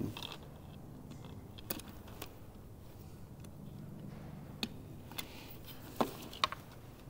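Small plastic wiring-harness connector being handled and pried at: scattered sharp plastic clicks against quiet handling noise, the two loudest about six seconds in.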